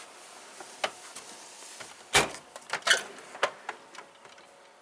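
Metal tool chest drawers being shut and opened: a few sharp clicks and knocks, with the loudest thud about two seconds in.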